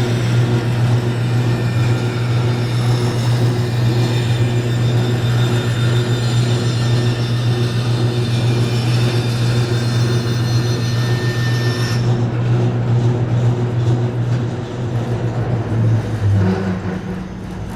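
Woodworking bandsaw running with a steady motor hum while its blade cuts a curve through wood stock. About two-thirds of the way in the high hiss drops away, and near the end the hum shifts and the sound fades.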